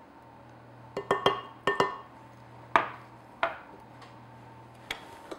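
A utensil clinking against glass bowls as sour cream is scraped and tapped off into a glass mixing bowl: a string of sharp clinks, some with a short ring, bunched about a second in and again near two seconds, then single ones spaced out.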